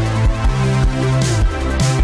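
Electronic background music with deep held bass notes and a beat.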